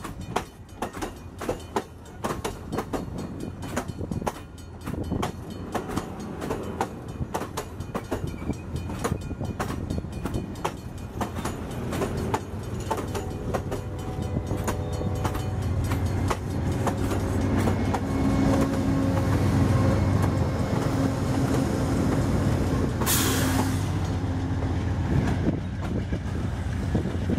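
Bilevel passenger cars rolling past, their wheels clicking rapidly over the rail joints. Then the low engine rumble of an approaching Amtrak GE Genesis diesel locomotive builds to a loud, steady drone, with a short hiss near the end.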